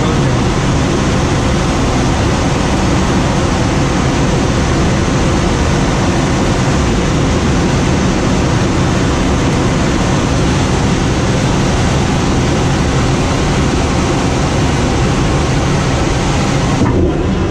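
Steady, loud rushing noise inside a glider's cockpit, with no engine and no distinct knocks or tones.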